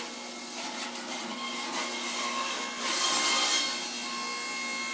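Electric juicer running, its motor giving a steady hum and whine as it shreds leafy greens pushed into the chute. The grinding comes in rough surges, loudest about three seconds in.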